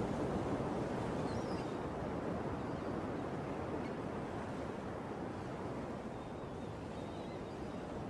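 Steady wash of sea surf with no music or voice, slowly getting a little quieter.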